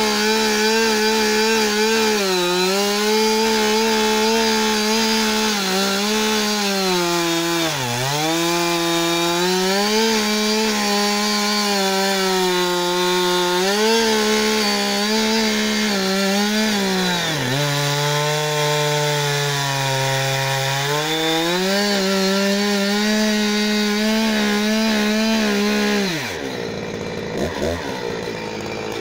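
Husqvarna 359 two-stroke chainsaw at full throttle cutting through a log, its engine pitch dipping and recovering again and again as the chain bogs in the wood, and running lower for a few seconds in the middle of the cut. About three seconds before the end the throttle is released and the engine falls away toward idle, much quieter.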